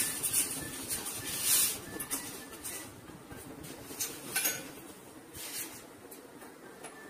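Plumbing work at a wash basin: a few short scraping, rustling noises as an adjustable wrench and pipe fittings are handled.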